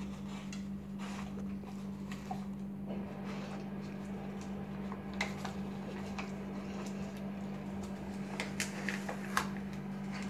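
A dog nosing and mouthing a small wrapped present, giving scattered faint clicks and rustles, a few sharper ones about five seconds in and again near the end, over a steady low hum.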